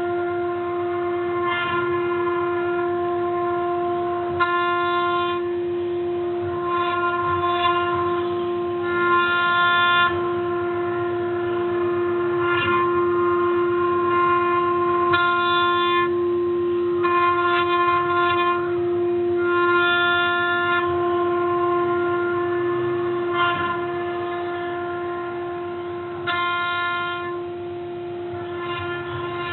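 CNC carving machine at work: a steady spindle whine, with higher motor tones switching on and off at fixed pitches every second or so as the axes move.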